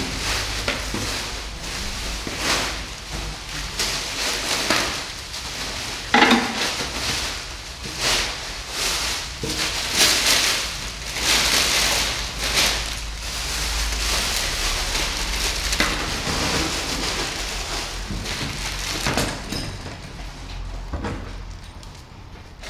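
Plastic packaging and bubble wrap crinkling and rustling as it is pulled off and handled. The crackle is irregular, with a few louder rustles.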